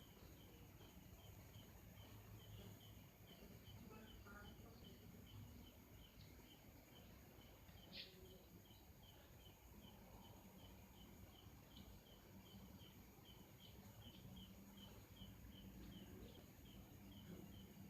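Faint high chirp repeating evenly, about two a second, from a small animal, over a low hum; a single sharp click about eight seconds in.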